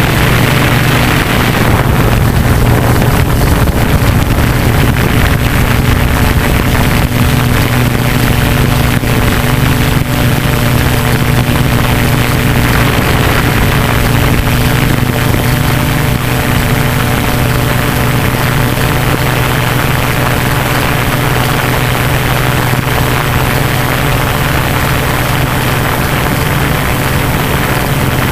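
Hexacopter's six motors and propellers running steadily in flight, a constant multi-pitched whir heard close up from the drone's own onboard camera.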